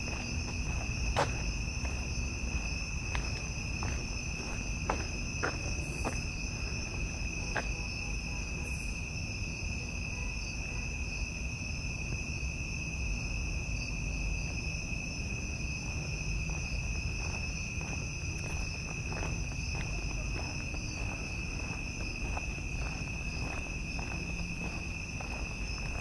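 Night insects, crickets, singing in a steady, unbroken high-pitched chorus, with the walker's footsteps ticking at intervals, more often in the second half.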